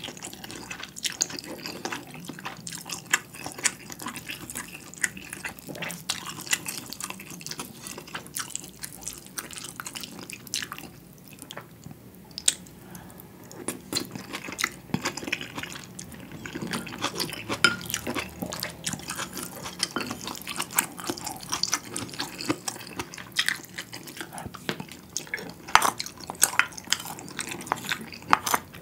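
Close-miked eating sounds: a spoon scooping rice mixed with budae-jjigae stew from a ceramic bowl, and wet chewing with many small sticky clicks and smacks throughout.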